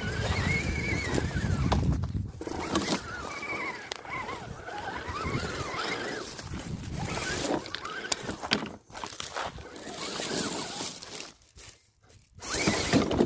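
FTX Kanyon RC crawler's electric motor and drivetrain whining, the pitch rising and falling over and over as the throttle is worked, with scattered clicks and scrapes from the truck working over rock and dry grass. The whine drops away briefly near the end.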